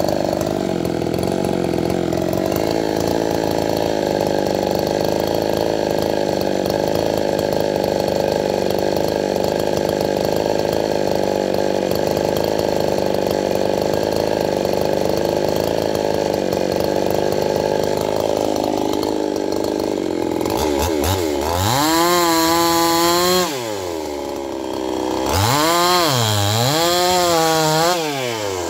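Stihl-clone two-stroke chainsaw idling steadily for about twenty seconds, then revved up twice to high speed near the end, each rev held a couple of seconds, the second dipping briefly in the middle.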